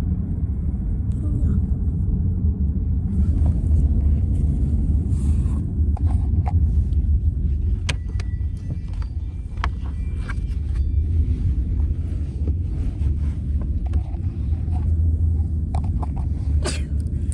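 Steady low rumble of a car on the move, heard from inside the cabin, with scattered small clicks and rattles.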